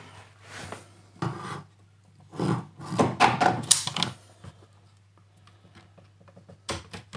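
Hands handling a metal network faceplate and its cables: rubbing and clunking in several short bursts, the loudest about three to four seconds in, then a few small sharp clicks near the end.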